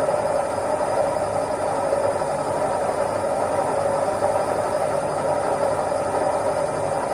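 Washing machine running steadily: an even mechanical hum and rush with a steady tone in it, no change in pace or level.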